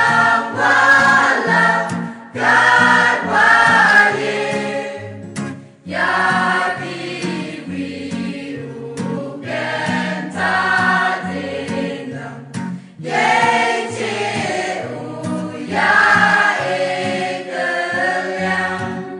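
Choir singing a hymn together, in long sung phrases with brief breaks between them.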